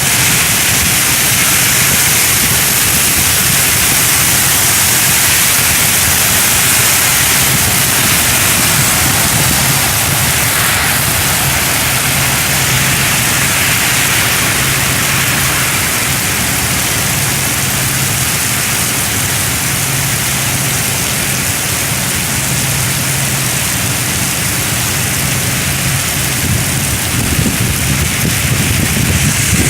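Rain falling steadily, a continuous even hiss, with a low steady rumble underneath.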